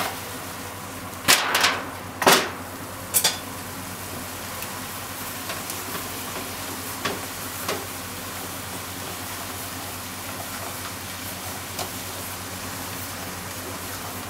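Bean sprouts and shimeji mushrooms sizzling steadily in a frying pan, with four loud clanks from the pan as it is shaken in the first few seconds, then a few light clicks of chopsticks stirring.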